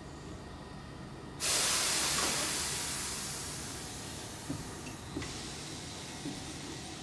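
Keihan 8000 series electric train venting compressed air: a sudden loud hiss about one and a half seconds in that fades away over several seconds, with a couple of light knocks, as the train gets ready to pull away.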